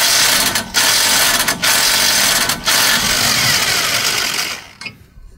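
Power ratchet running on a bolt behind the front wheel hub, in runs of about a second with three brief pauses, then dying away near the end.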